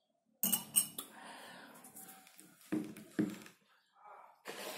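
Mouth sounds of eating pork and rice by hand: chewing and smacking, with sharp clicks about half a second in and short low sounds near the middle.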